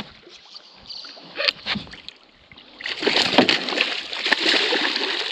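A few scattered knocks, then about three seconds in a loud stretch of water splashing as a hooked fish thrashes at the surface beside the boat.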